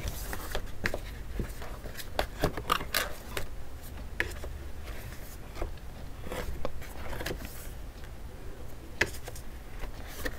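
Stiff cardboard pages of a ring binder turned one after another by hand: short rustles and scrapes, with scattered light clicks and taps of card against card.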